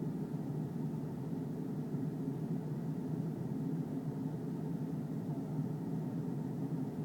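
Steady low rumble of an Airbus A320 in flight, heard inside the cabin: engine and airflow noise.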